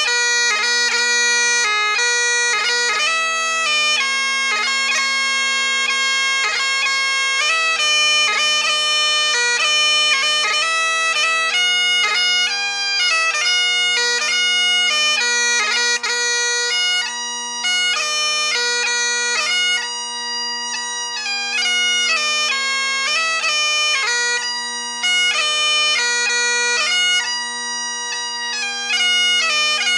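Great Highland bagpipe playing a 6/8 march tune on the chanter over steady, continuous drones, the melody moving quickly with short gracenote flicks between notes.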